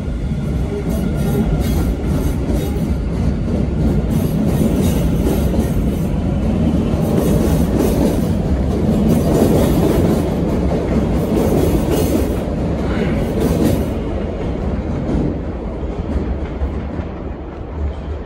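MBTA Red Line subway train running through the station on the far track, its wheels clacking over the rail joints. The rumble builds to its loudest around the middle, then fades as the train pulls away.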